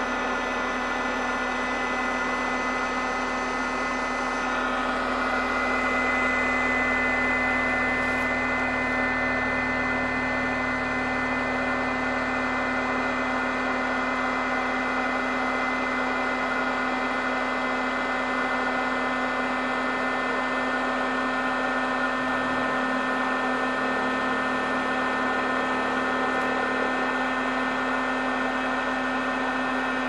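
AEG electric foot massager running steadily: a motor hum with a strong low tone and a higher whine, the whine growing a little stronger about five seconds in.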